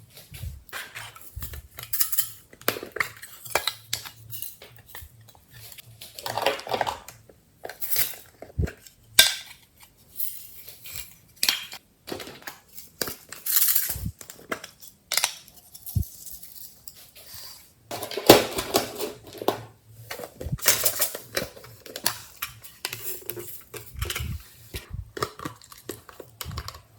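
A utensil scraping and clinking against a bowl in irregular bursts as slime is stirred and mixed.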